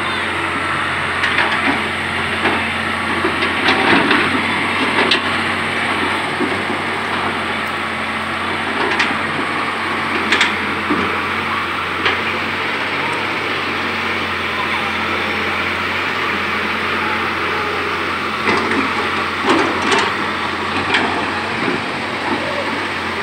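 Kobelco crawler excavator's diesel engine running steadily as it digs out a riverbed, with scattered knocks and clanks from the work.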